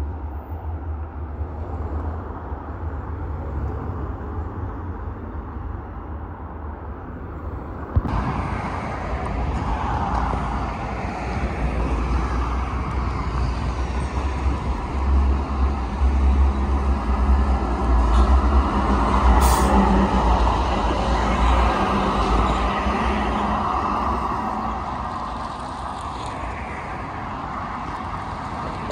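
Street traffic, with cars and trams moving along the road and a heavy low rumble throughout. The sound jumps louder about eight seconds in, and a brief hiss comes a little before twenty seconds in.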